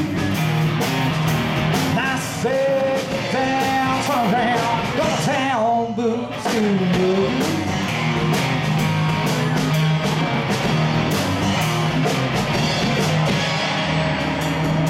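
Live band playing a country song on electric guitars and bass over drums, with a lead line that bends up and down above a steady bass note.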